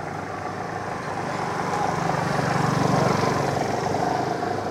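A motor engine running steadily nearby, growing louder to about three seconds in and then fading, like a vehicle passing.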